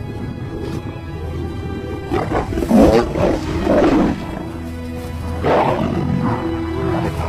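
Two male lions snarling as they grapple, in rough bursts starting about two seconds in and again about five and a half seconds in, over background music with steady held notes.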